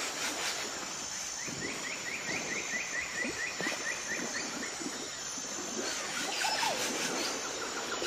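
Bird calling a rapid series of short repeated notes, about five a second, for around three seconds, with a single short call later, over a steady hiss of wind in the open.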